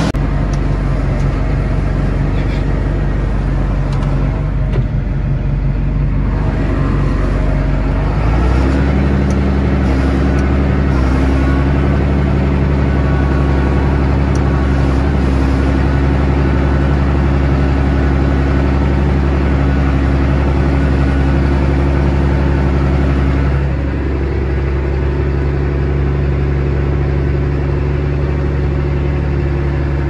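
A vehicle engine running steadily. About eight seconds in it speeds up to a higher, steady pitch, and it eases off slightly near 24 seconds.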